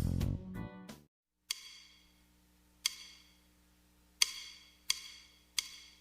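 Background guitar music dies away about a second in, then five sharp taps follow one by one, each ringing briefly.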